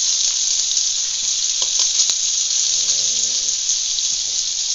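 Pieces of farmer sausage sizzling in butter in a hot frying pan as they brown to crispy: a steady high hiss, with a couple of light clicks about halfway through.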